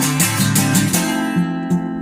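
Acoustic guitar strumming chords in an instrumental break between sung verses, with a chord change partway through.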